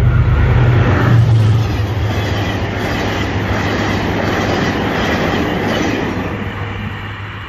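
General Electric diesel-electric locomotive passing close, its engine drone strongest for the first second and a half, then the passenger coaches rolling past with their wheels clattering on the rails, fading as the train moves away.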